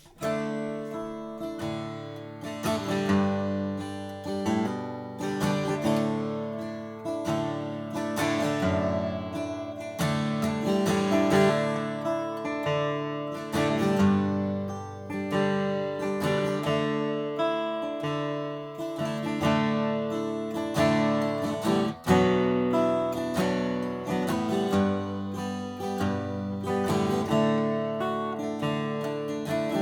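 Martin D-1 Authentic 1931, a 12-fret dreadnought acoustic guitar, played solo with chords strummed and picked and left ringing. The playing briefly breaks off about three-quarters of the way through.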